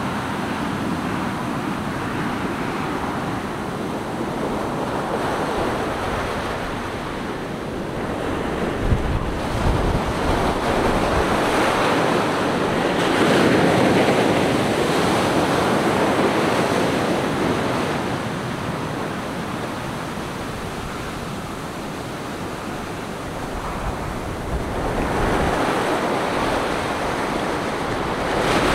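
Ocean surf on a sandy beach: waves breaking and washing up the shore, a steady roar of noise that swells and ebbs, loudest about halfway through and again near the end. Some low wind buffeting on the microphone about nine seconds in.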